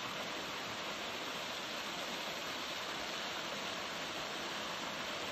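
Thin waterfalls spilling over a rock ledge into a pool: a steady, even rush of falling water.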